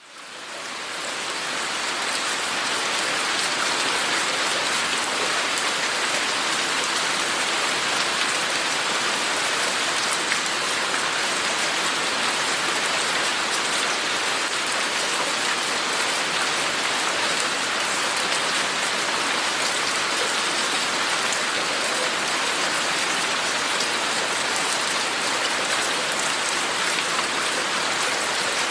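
Steady rain falling, a dense even hiss of drops, fading in from silence over the first couple of seconds and then holding level.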